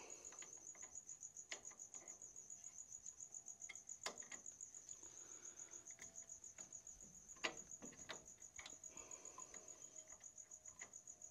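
A cricket chirping in a fast, even pulse, faint throughout, with a few sharp metallic clicks, the loudest about four and seven and a half seconds in, as small drum-brake parts are worked by hand.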